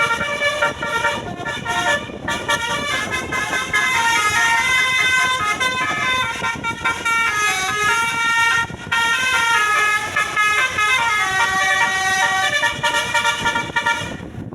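A bus's Basuri telolet multi-tone horn plays a fast melody, its horn notes stepping up and down in pitch in quick runs with a couple of brief breaks. It cuts off suddenly near the end.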